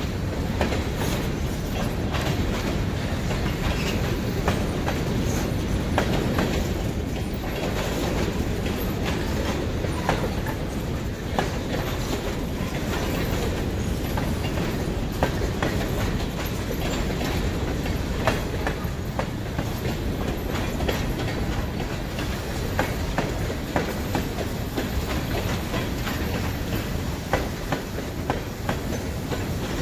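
Freight train cars rolling past, a steady rumble with the wheels clicking irregularly over the rails.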